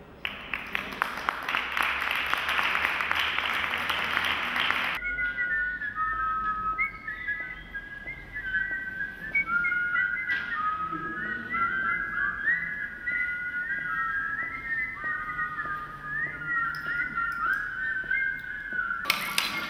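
A dense crackling hiss that cuts off abruptly about five seconds in, then many short whistled notes overlapping one another, most of them sliding upward. A burst of hiss returns near the end.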